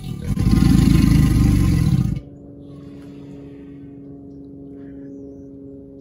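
American alligator bellowing: one loud, deep call of about two seconds just after the start, which stops abruptly.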